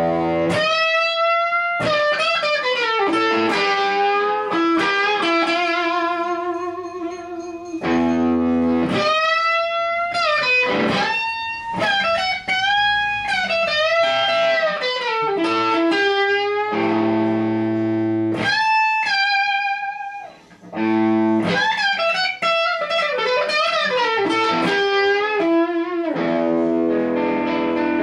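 Electric guitar played through the Black Dog Classic, a 20-watt Marshall JTM45-style tube amp. It plays held lead notes with wide vibrato and bends, broken now and then by chords, with a short pause about twenty seconds in.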